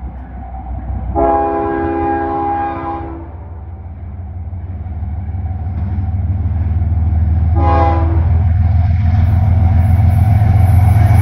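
Horn of an approaching Canadian Pacific diesel freight locomotive, a chord of several notes: a long blast about a second in, a short blast near eight seconds, and another long blast starting at the end. Under it the low rumble of the locomotive grows steadily louder as the train nears.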